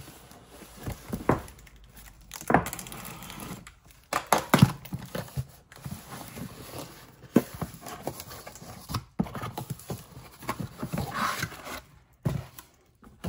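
Cardboard shipping box being slit open with a box cutter and its flaps pulled back, giving scraping and rustling of the cardboard and an irregular series of sharp knocks as the box is handled.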